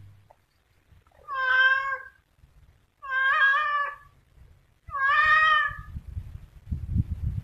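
Domestic tabby cat meowing three times, each call about a second long, followed near the end by a low rumbling noise.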